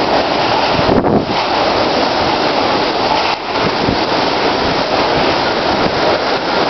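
Hurricane-force wind and heavy rain in a hurricane's eyewall, a loud steady rush with the wind buffeting the microphone.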